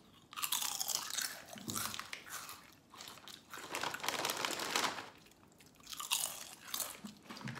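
Two people biting and crunching thin honey butter potato chips, in three spells of crisp crackling with short pauses between.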